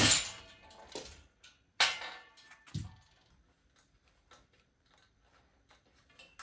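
Two sharp clattering knocks about two seconds apart and a dull thud, then faint light clicks.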